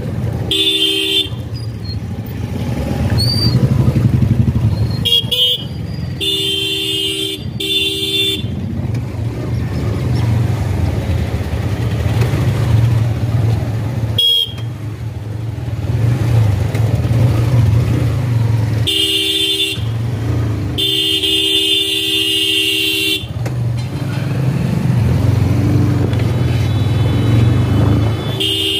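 Vehicle horns honking repeatedly, a few quick toots and several held blasts of a second or two, over the steady low running of a motorcycle engine in slow street traffic.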